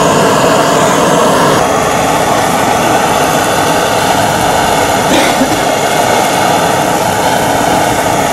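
Handheld gas torch on a gas canister burning at full flame, a loud steady rushing hiss.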